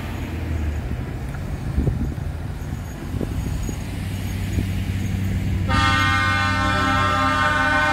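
Low rumble of passing truck engines, then about two-thirds of the way in a truck's air horn starts abruptly and holds a loud, steady multi-tone chord.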